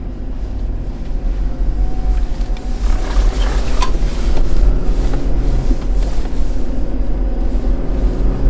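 Ineos Grenadier's BMW B58 3.0-litre turbocharged inline-six, heard from inside the cabin, pulling under light throttle through the ZF 8-speed automatic, with a heavy low rumble. The engine note rises gently from about two seconds in.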